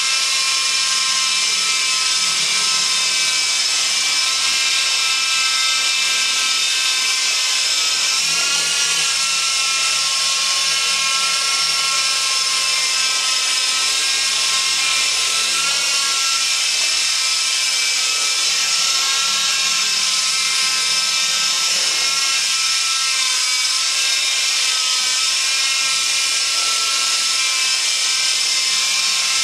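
Walkera 4#1 micro electric RC helicopter hovering, its small electric motors and rotors making a steady high whine that dips slightly in pitch a few times. The owner notes that the motor sound changed after a crash.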